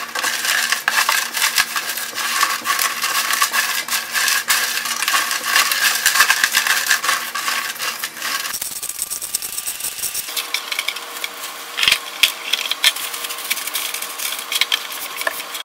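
Cardboard jigsaw puzzle pieces being broken apart and tumbled together: a dense, continuous clatter of small clicks and rattles, changing in texture about nine seconds in.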